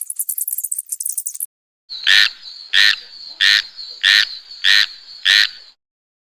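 An animal call repeated six times, evenly spaced about two-thirds of a second apart, over a steady high-pitched whine. Before it, a fast rattle of high clicks stops about one and a half seconds in.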